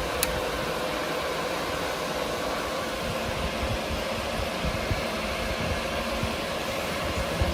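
Cooling fans of a GPU mining rig running, a steady whirring rush with a faint hum in it. A single sharp click sounds just after the start.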